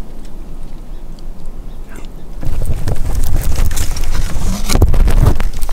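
Wind buffeting the microphone. It becomes much louder about two and a half seconds in, with scattered clicks and rustles.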